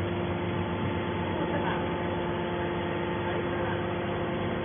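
Mini can baler's hydraulic power unit running: a steady, even hum from its electric motor and pump.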